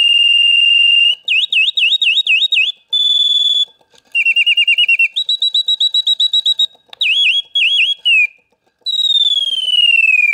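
Reuge singing bird box whistling its mechanical bird song, the whistle voiced by the box's bellows-and-piston movement. It plays a string of held whistles, fast warbling trills and short chirps, then a long falling whistle near the end. This is an unusual song set by a non-standard cam set.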